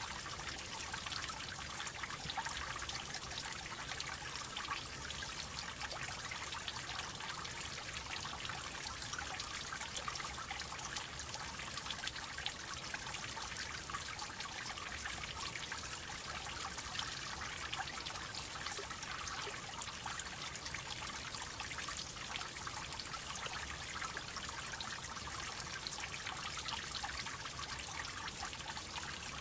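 Water droplets falling, a dense, steady patter of many small drips that blends into a continuous trickling.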